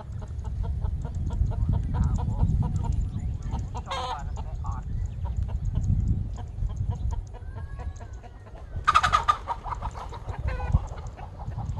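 Chickens clucking, with louder calls about four seconds in and a longer one about nine seconds in, over wind rumbling on the microphone.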